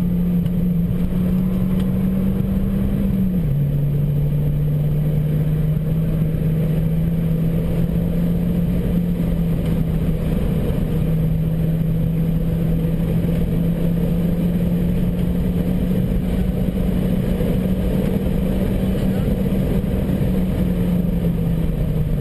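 Engine of an Opel Coupe Turbo, a turbocharged four-cylinder, heard from inside the cabin, running hard under load at a steady high pitch over wind and tyre noise. The pitch drops sharply about three and a half seconds in, climbs slowly through the middle and drops again near the end.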